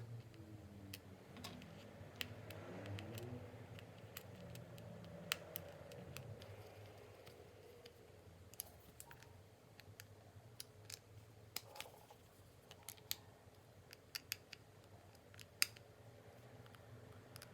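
Faint, irregular small clicks and taps of a smartphone's parts and small tools being handled during a battery replacement, a dozen or more sharp ticks spread unevenly.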